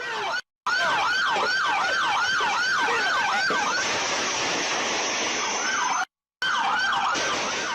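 Police car siren on a fast yelp, its pitch rising and falling about three or four times a second. About halfway through it gives way to a rushing noise, and the sound drops out briefly twice.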